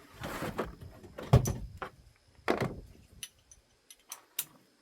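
Metal engine parts and hand tools clanking and rattling during an engine teardown: a short scrape, one sharp loud clank about a second and a half in, a second clank a second later, then a few light clicks.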